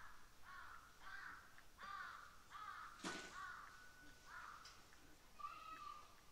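A faint series of short, harsh caw-like bird calls, about eight in all, with a sharp click about three seconds in: a sound effect standing for the skylark's short song.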